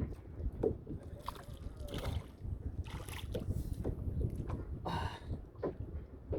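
Water sloshing against a kayak hull, with wind rumbling on the microphone and several brief hissing noises.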